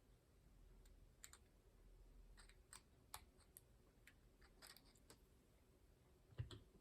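Near silence broken by faint, scattered small clicks and taps from a metal cam lock and tools being handled, with one soft knock near the end.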